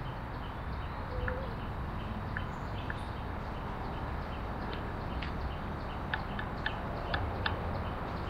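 Outdoor ambience: a steady low rumble with scattered short, high ticks, several in quick succession about six to seven seconds in.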